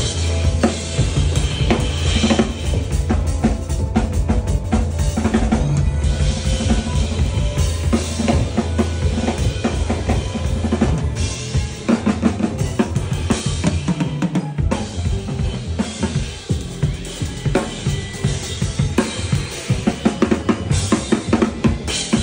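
Allegra drum kit played live with sticks: kick drum, snare and cymbals keeping a groove, over a low sustained bass line through roughly the first half.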